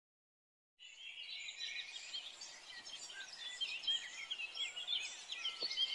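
Silence, then about a second in a dense chorus of small birds chirping, many short overlapping calls that grow louder toward the end.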